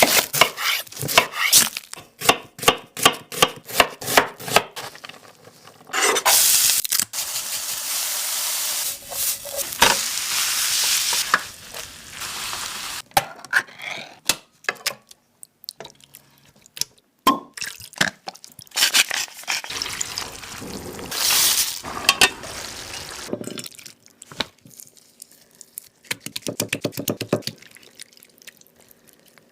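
Cooking sounds: a utensil tapping and scraping against a pan in quick runs of strokes, with several bursts of sizzling hiss lasting a second or more, as food fries.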